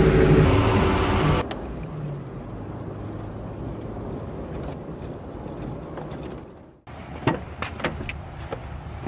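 Pickup truck driving, heard from inside the cab: steady low road and engine noise, after background music ends about a second and a half in. Near the end come a few sharp clicks and knocks.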